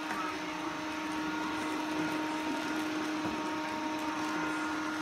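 Samsung POWERbot robot vacuum running: its suction motor gives a steady, even hum with a constant whine over it as the robot cleans a tile floor.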